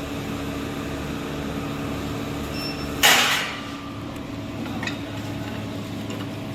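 Induction melting furnace running with a steady electrical hum. About three seconds in, a sudden loud hiss cuts in and fades within about half a second.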